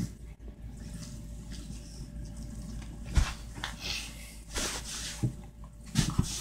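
Kitten scampering and pouncing in play: irregular soft thumps and scuffs, with a sharper thump about halfway through and two more near the end.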